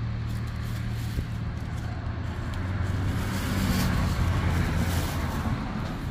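A steady low mechanical hum, like a running motor, throughout. About halfway through comes the crinkling rustle of a thin plastic shopping bag being shaken open.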